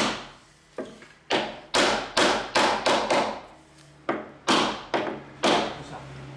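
Repeated heavy blows on timber, about a dozen in quick succession with a short pause partway through, each sharp strike ringing out briefly: a carved wooden beam being knocked down onto the bars of a wooden lattice.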